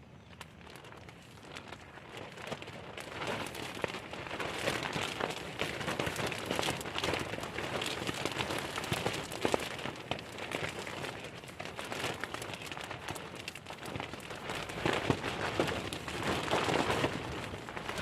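Rain falling, a dense pattering of drops that builds up over the first few seconds and then keeps on steadily.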